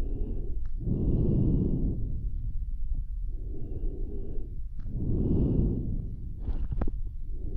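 Slow, deep breathing close to the microphone, performed as a dinosaur's breath. There are two breath cycles, each a quieter breath followed by a louder one, with a few wet mouth clicks near the end.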